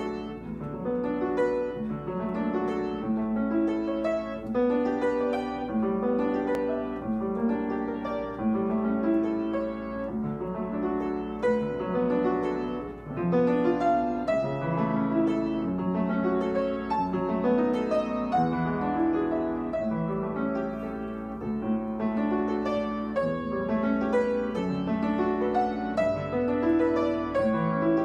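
Upright piano played solo: an etude in a continuous stream of quick notes.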